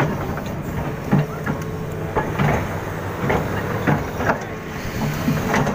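A machine's engine running steadily with a low hum, with irregular sharp knocks and clicks about once a second.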